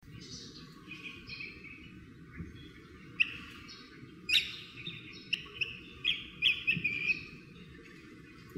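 Birds chirping: a scatter of short, sharp chirps, with a quick run of louder notes between about four and seven seconds in.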